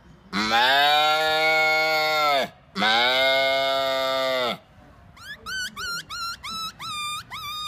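A man's voice imitating a cow: two long moos of about two seconds each. Then, a little past the middle, a quick run of short rising squeaks, about two a second, imitating a small puppy whimpering.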